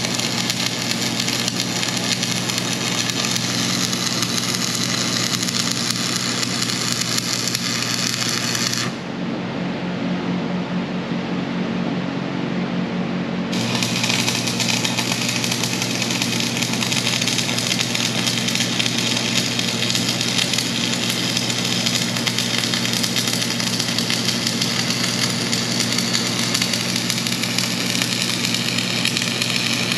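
Welding arc crackling and hissing on thick steel in two long weld runs. It breaks off about nine seconds in and strikes up again about four seconds later. A steady low hum runs underneath throughout.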